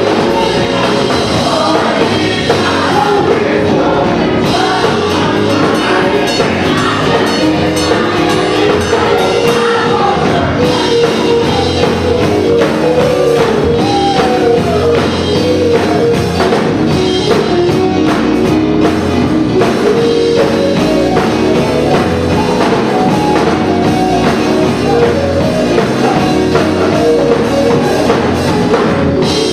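Gospel choir singing with a live band, drum kit keeping a steady beat.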